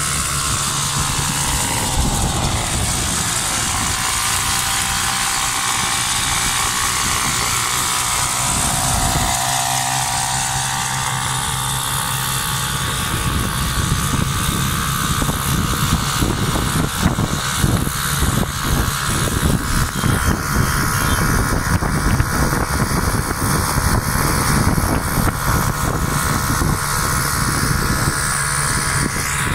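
Small motorcycle-type engines running while riding along a road, the pitch climbing over the first ten seconds or so as they speed up, with a steady rush of wind noise over it.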